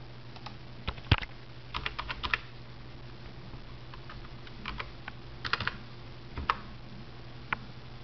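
Computer keyboard being typed on in short, uneven bursts of a few keystrokes with pauses between, over a low steady hum.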